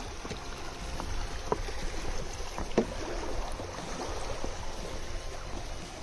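Footsteps on a footbridge: a few sharp knocks with a short ring, the loudest about three seconds in, over a low steady rumble.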